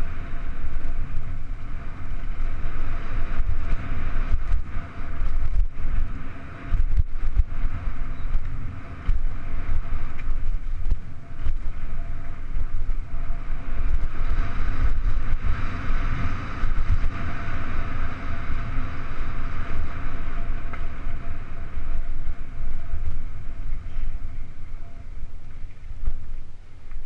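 Mountain bike riding fast down a bumpy dirt trail: wind buffeting the microphone and the tyres and frame rumbling and rattling over the ground. A faint steady whine sits underneath for most of the run.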